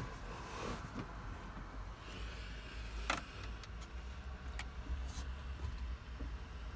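Several sharp clicks of the buttons on a VW Transporter's dashboard radio unit being pressed, the loudest about three seconds in, over a low steady rumble.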